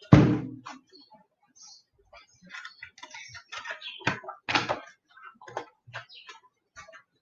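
Short clicks, taps and rustles of papers and objects being handled on a desk, starting with one loud knock with a brief low hum.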